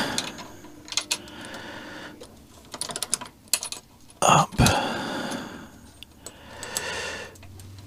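Small metallic clicks and taps as a nut and bolt are worked by hand on the foot peg bar bracket of a Honda CB200, with one louder short noise about four seconds in.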